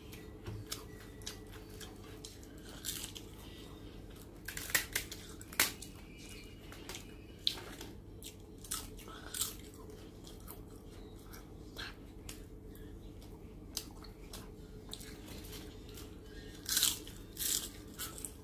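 Eating by hand: fingers squishing rice and fish curry on a plate, papad crackling as it is broken, and chewing, heard as scattered small crackles and clicks. Louder crunches come about five seconds in and again near the end.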